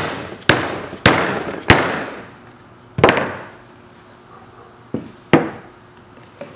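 Plastic mallet striking a VW vent wing frame to seat the ends of the glass in its rubber seal: four sharp blows in under two seconds and another about three seconds in, each with a brief ringing decay. Lighter knocks follow near the end as the frame is handled.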